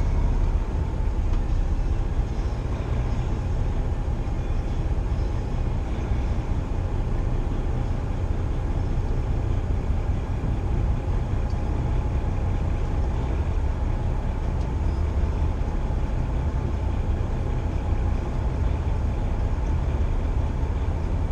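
Semi truck's diesel engine running with a steady low rumble, heard inside the cab as the truck moves along.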